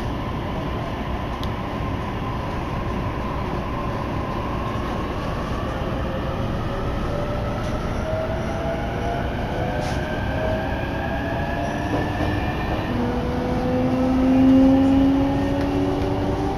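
Electric commuter train pulling out and accelerating, heard from on board: a steady rumble with the electric motors' whine rising in pitch in several tones from about five seconds in, loudest near the end.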